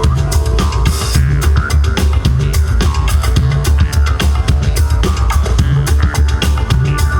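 Live band music with a steady, driving beat: kick drum and cymbals over a heavy pulsing bass line.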